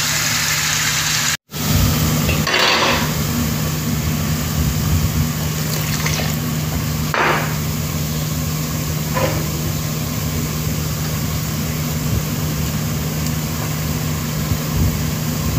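A pan of food cooking on the stove: a steady sizzling hiss over a low, steady hum, with three short stirring swishes. The sound drops out briefly about a second and a half in.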